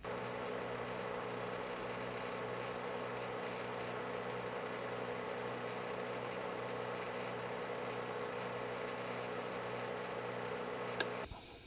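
Steady electrical hum with hiss, a low buzz under an even noise, cutting off suddenly about eleven seconds in just after a faint click.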